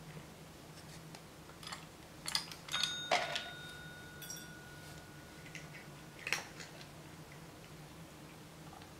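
A desk service bell dings once about three seconds in and its tone rings on for a few seconds. Around it, small dry kibble pieces click and clatter into a ceramic bowl.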